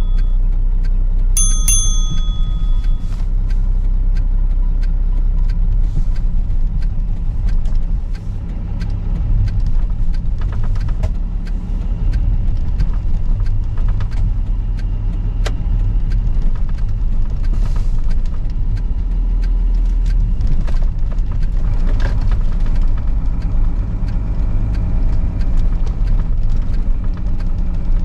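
Expedition truck's diesel engine running steadily under load, heard from inside the cab, as the truck is dragged out of deep snow on a tow line. A short notification-bell chime rings once about a second and a half in.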